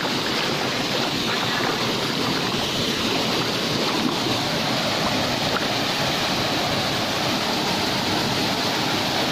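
Steady rushing of a shallow mountain stream running over rocks below a waterfall, an even unbroken noise.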